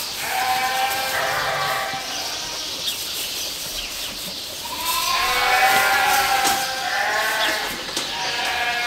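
Sheep bleating, several calls in bouts, the longest and loudest from about five to seven seconds in.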